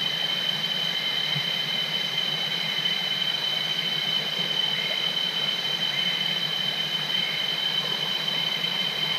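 Shallow stream water rushing over rocks: a steady hiss, with a steady high-pitched drone above it.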